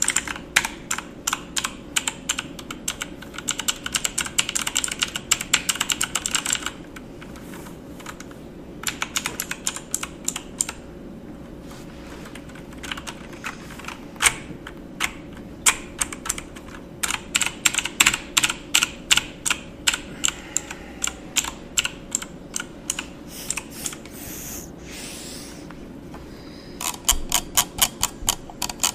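Typing on a computer keyboard: runs of rapid key clicks that stop and start, with short pauses between bursts, over a faint steady hum.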